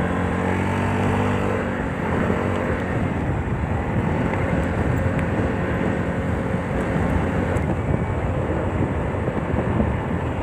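Motor scooter engine running at road speed, with wind and road noise on the microphone. A steady engine tone in the first two seconds gives way to rougher, noisier wind-and-engine sound.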